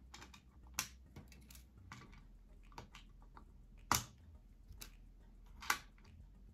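Faint clicks and taps of small clock hands being pulled off a clock movement's spindle and laid on a wooden tabletop: a few sharp clicks, the loudest about four seconds in.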